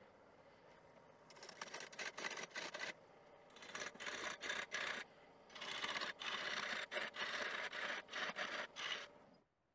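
Turning tool cutting a spinning wooden blank on a lathe: a hissing, scraping shaving sound in three runs with short pauses between them, stopping shortly before the end.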